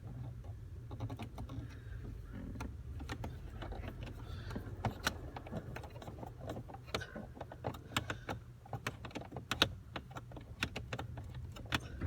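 Irregular sharp clicks and light metallic rattles of small parts being handled, like keys and switch parts, over a low steady hum. The clicks come thicker in the second half.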